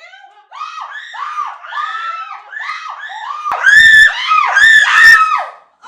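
Exaggerated comic sneezing from a person with bothersome allergies: a rapid string of about a dozen short yelled cries, each rising and falling in pitch, that build louder and higher until two very loud, harsh sneeze-yells near the end.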